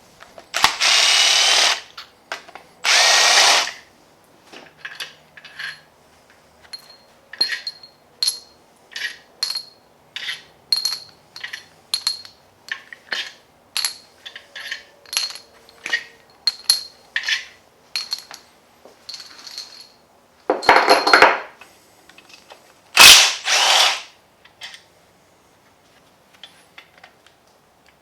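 A handheld power tool runs in four bursts of about a second each, two near the start and two later on. Between them comes a long run of short, sharp clicks, about two a second.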